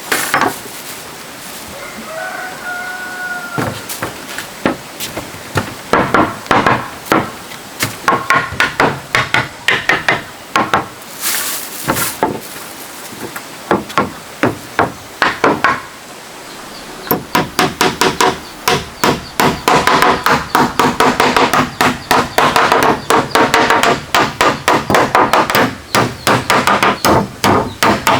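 Hammer striking nails into wood: scattered blows at first, then a fast, steady run of several strikes a second from about two-thirds of the way through. A chicken calls briefly near the start.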